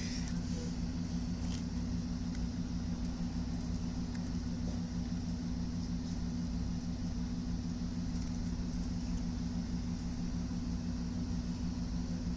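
A steady low hum with a few constant tones, like a running fan or motor, holding unchanged throughout.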